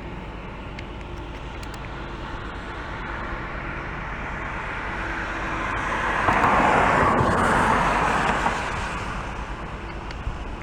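A vehicle passing by: a rushing noise that swells, is loudest about six to eight seconds in, then fades.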